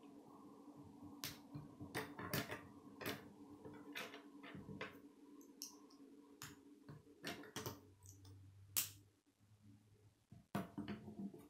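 Plastic K'nex rods and connectors clicking irregularly as pieces are snapped together and handled on a wooden table, one click near the end of the second-to-last third louder than the rest. A faint steady low hum runs underneath.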